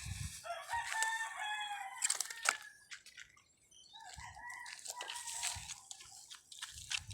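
A rooster crowing twice, each crow lasting about two seconds, with scattered sharp clicks close by.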